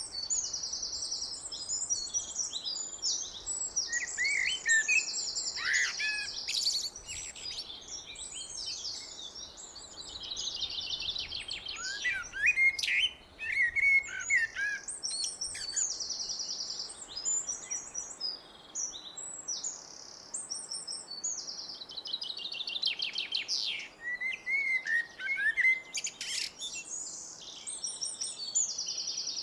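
Blackbird singing: bouts of short phrases with fast, high twittering trills and a few lower notes, broken by brief pauses.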